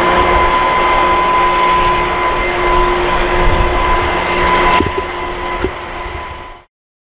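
Train rolling on the rails: a steady rumble and hiss with a constant high ringing tone and a few knocks about five seconds in. It cuts off abruptly near the end.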